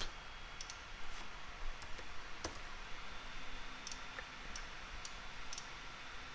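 Computer mouse clicks: about a dozen short, sharp clicks at irregular intervals over a faint steady hiss.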